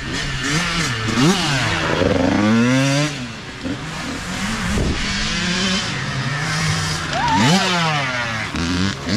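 Youth dirt bike engines revving up and easing off again and again as riders come along the trail. About seven seconds in, one bike passes close, its pitch climbing sharply and then falling away.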